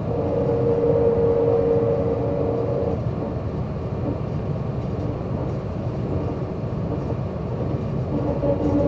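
MAN SL202 city bus's CNG engine and drivetrain running as the bus is driven, a continuous rumble. A steady pitched whine over it drops away about three seconds in and comes back near the end.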